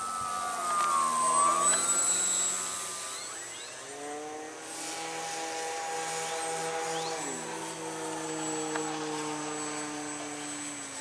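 Electric motors and propellers of E-flite T-28 Trojan radio-controlled planes whining in flight. A higher whine dips and rises in pitch during the first couple of seconds, and a lower whine comes in about four seconds in and drops in pitch a few seconds later as the throttle or the plane's path changes.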